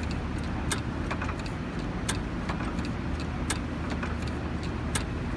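Old hit-and-miss stationary engine coasting between firings, its governor holding the exhaust valve open so there is no compression, with a low rumble and a sharp click about every second and a half.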